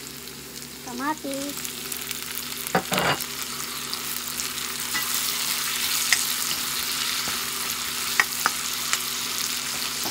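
Onions and garlic sizzling in hot oil in a wok. About three seconds in, sliced tomatoes go in with a loud thump and the sizzling grows stronger. A spatula stirs the pan, with a few sharp ticks against the wok.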